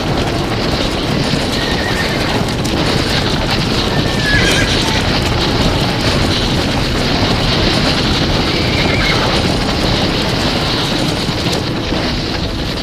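A herd of horses stampeding: a dense, steady rumble of many galloping hooves, with a few short whinnies cutting through.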